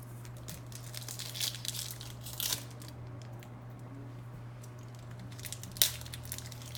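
1999 Bowman Chrome football card pack wrapper crinkling and tearing as it is opened, in scattered crackles, the loudest a single sharp crackle about six seconds in.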